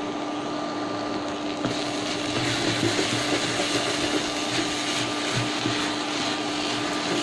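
Meat-and-vegetable filling sizzling as it is stir-fried on high heat, a wooden spatula scraping and tossing it in the pan, over the steady hum of an induction cooktop. The sizzle and scraping grow louder from about two seconds in.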